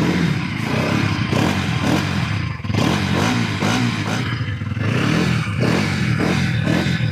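2024 Bajaj Pulsar NS200's 199 cc single-cylinder, liquid-cooled four-stroke engine running through its underbelly exhaust, revved in repeated throttle blips, its pitch rising and falling again and again, with a short dip in the revs near the middle.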